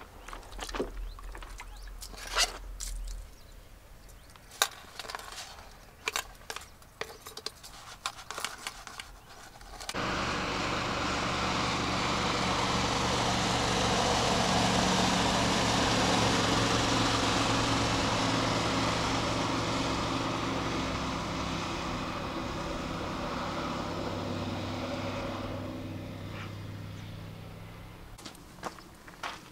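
Scattered light clicks and knocks, then about ten seconds in a motor engine's steady hum and rush sets in suddenly, swells, and fades away over the next eighteen seconds or so.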